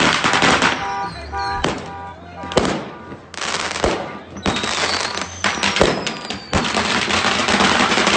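A stockpile of consumer fireworks set off by a garage fire, going off all at once: rapid, irregular bangs and dense crackling from firecrackers and aerial shells. A high whistle, falling in pitch, comes about five seconds in.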